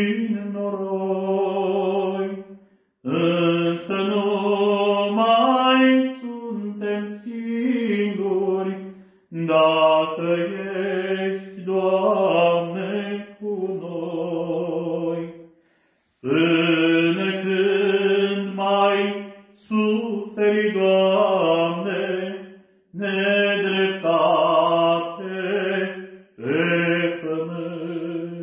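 An Orthodox priest singing a Romanian church song solo and unaccompanied, in long held phrases with brief pauses for breath between them.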